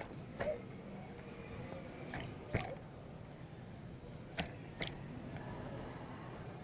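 About five short, sharp clicks or taps spread over a few seconds, over a steady low background rumble.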